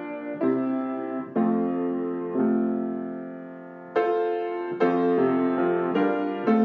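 Solo piano playing a slow Christmas song, chords struck about once a second and left to ring and fade, with one longer held chord midway.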